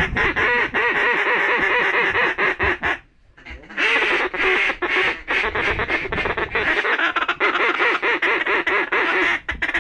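Hand-blown duck call worked in rapid, fast-paced quacking chatter to turn a lone duck flying away. It runs in two long strings, broken by a short pause about three seconds in.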